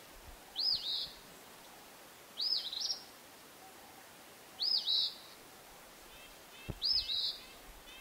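Eastern phoebe singing its 'fee-bee' song four times, about two seconds apart, each a short high two-part phrase, over a steady low hiss. Fainter repeated chirps come in behind it near the end.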